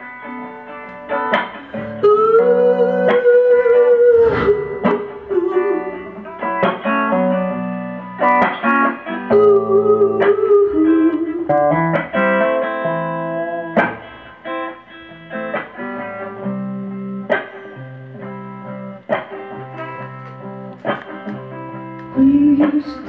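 Electric guitar played as an instrumental passage: picked single notes and chords, with a few long held notes that bend in pitch, near the start and again about ten seconds in.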